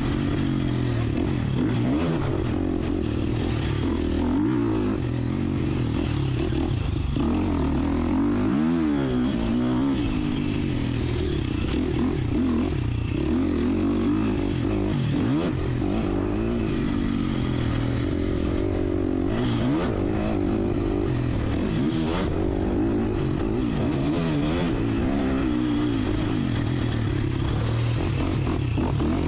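Husqvarna FC 350 single-cylinder four-stroke motocross engine being ridden hard, revving up and down repeatedly as the rider accelerates, shifts and backs off through the track's jumps and turns. A few sharp clicks and knocks come through over the engine partway through.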